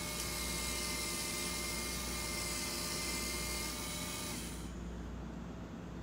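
Belt grinder running with an axe edge held to its 1000-grit belt: a steady high whine and grinding hiss. The hiss and whine stop about four and a half seconds in, leaving a lower hum.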